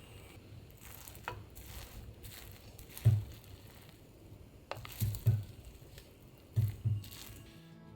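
Soft low wooden knocks, one and then two quick pairs, with a few light clicks, from a paulownia-wood rice dispenser being handled.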